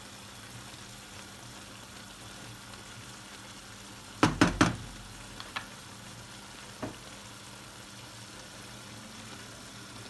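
Eggs and wild asparagus frying gently in a nonstick pan, a faint steady sizzle. About four seconds in come three quick, sharp knocks as the spatula is put aside, then a few light ticks.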